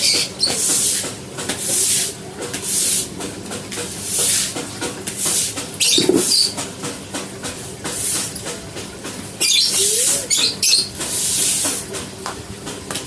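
Repeated swishing hiss strokes, roughly one every second or so: a stiff brush or broom being scrubbed back and forth while a cage is cleaned.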